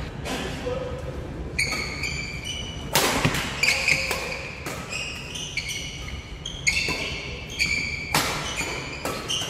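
Badminton rackets striking the shuttlecock in a fast doubles rally, roughly two hits a second, each a sharp crack followed by a brief ringing tone, echoing in a large gym.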